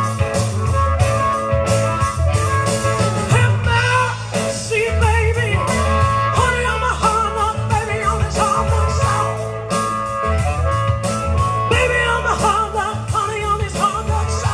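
Live blues band playing an instrumental break with a steady drum-kit and bass-guitar beat, and a lead line of bent, wavering notes over the top.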